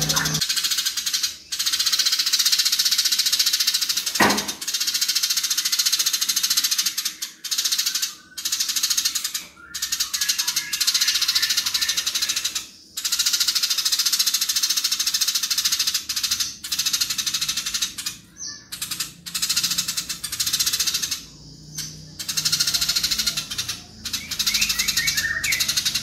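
Eurasian tree sparrow giving a fast, dense, harsh chattering rattle in long runs broken by short pauses every few seconds: the agitated chatter of a sparrow in fighting mode.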